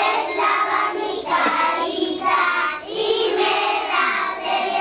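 A group of young children singing a song together, in phrases with short breaths between them.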